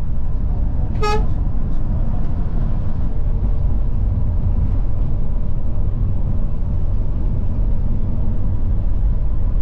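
Steady low rumble of a Scania K410 double-decker coach under way, heard from inside the cabin, with one short horn toot about a second in.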